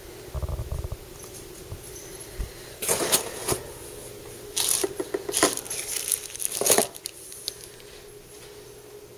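Knife packaging being handled: crinkly clear plastic wrapping and the cardboard box rustle in short bursts, once about three seconds in and again for about two seconds from four and a half seconds in.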